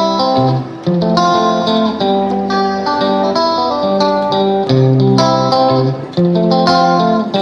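Background music: a plucked guitar playing a melodic phrase of changing notes.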